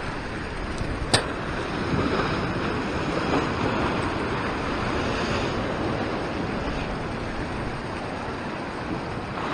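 Ocean surf washing over the rocks below, a steady rush of whitewater, with one sharp click about a second in.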